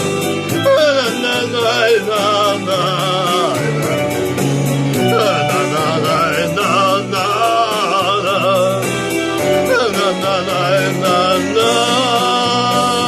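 Song music without words: an ornamented, wavering lead melody over bass notes and a steady drum beat.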